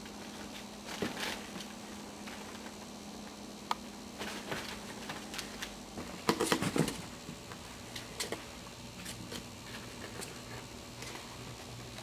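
Six-week-old Maltese puppies scrabbling and pattering about on floor sheeting and in a cardboard box: scattered light clicks, scratches and rustles, with a louder burst of knocking and scuffling about six seconds in.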